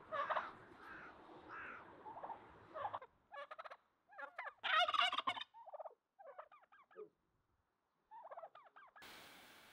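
Domestic turkeys gobbling in a series of rattling, wavering calls, the loudest burst about five seconds in. Near the end it cuts suddenly to a steady hiss.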